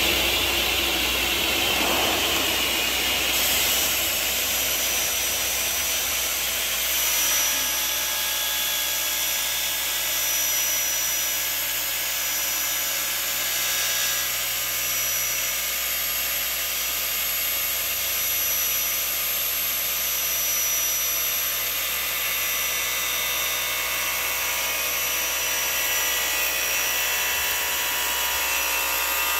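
Graule ZS 170N pull-over circular saw running: the electric motor and large circular blade spinning at speed, a steady whine with several held tones over a constant hum.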